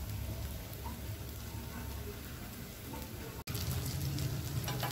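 Prawn vadai shallow-frying in oil on a flat tawa: a steady sizzle with fine crackles. It cuts off briefly about three and a half seconds in and comes back louder, as a steel spatula scrapes under the patties to turn them.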